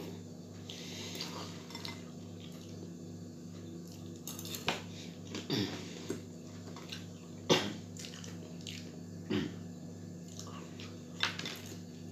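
A metal fork clinking and scraping against a bowl while french fries are eaten, with several sharp clinks from about four seconds in, over a steady low hum.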